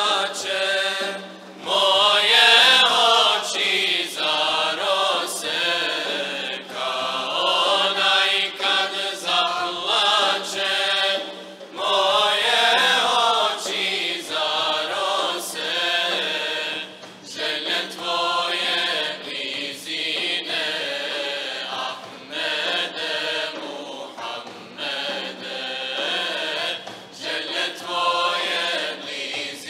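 Male choir singing an ilahija (Bosnian Islamic devotional hymn) in long, ornamented phrases over a held low drone note, with short breaks between phrases.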